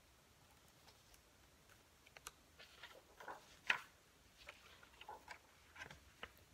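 Faint, irregular clicks and soft rustles of a picture book's cover and pages being opened and turned by hand, starting about two seconds in.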